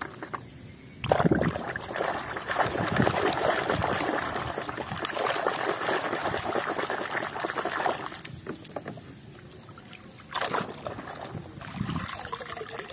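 Water sloshing and splashing as a plastic toy car is swished by hand in a tub of muddy water, steady from about a second in until about eight seconds, then a short splash and a few smaller ones as it is lifted and drips.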